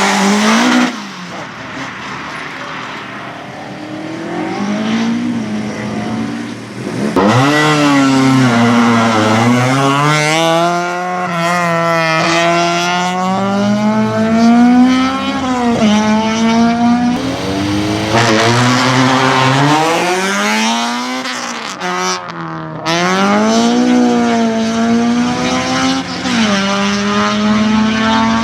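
A racing car's engine revving hard around a tight course, its pitch climbing and falling again and again as it accelerates, shifts and brakes. It is quieter for the first several seconds and gets much louder about a quarter of the way in.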